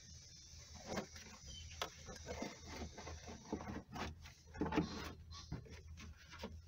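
Scattered knocks, clunks and scrapes as gloved hands handle and tip a narrowboat's bilge-pump bucket, working it loose among the metal fittings of the engine bay.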